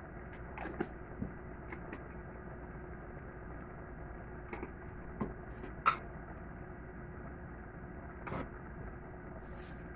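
Wooden spatula stirring shrimp masala in a stainless steel pot, giving scattered short knocks and scrapes against the pot, the loudest about six seconds in, over a steady background hum.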